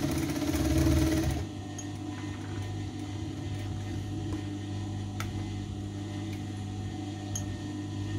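Sewing machine stitching a bias strip onto an armhole, running fast for about a second and a half and then stopping. A steady electric hum carries on after it, with a couple of faint clicks.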